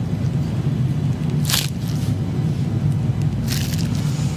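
A steady low hum, broken by two short hissing noises about a second and a half and three and a half seconds in.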